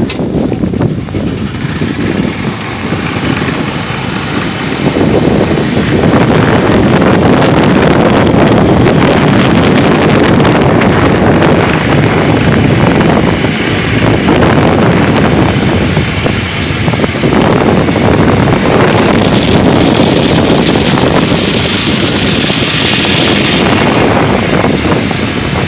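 Wind buffeting the phone's microphone outdoors, a loud, gusting rumble that rises and falls in strength.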